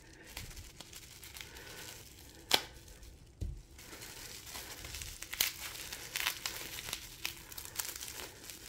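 Bubble wrap crinkling and rustling as hands unwrap a packet of silver coins. There is a sharp click about two and a half seconds in and a dull thump just after.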